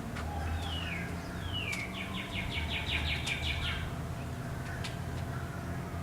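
A songbird singing: two falling whistles, then a fast, even trill of about ten notes a second that stops near the middle, over a steady low rumble.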